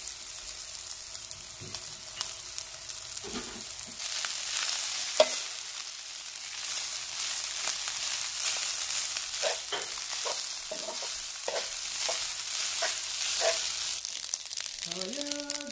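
Bell pepper and tomato sizzling in oil in a nonstick pan, then cooked rice being stirred in with a metal spatula. The sizzle gets louder about four seconds in, with the spatula scraping and knocking against the pan and one sharp knock about five seconds in.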